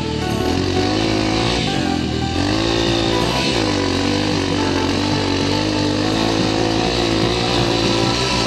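Dirt bike engine on the move, its pitch dropping and climbing again several times as the rider eases off and gets back on the throttle.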